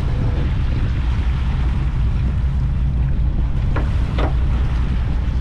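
Wind buffeting the microphone over a boat's steady low rumble and the wash of water, with two short sharp sounds close together about four seconds in.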